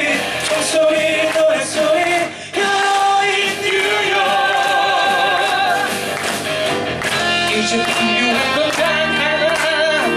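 Live singing of a musical-theatre song over band accompaniment, with held notes sung with vibrato.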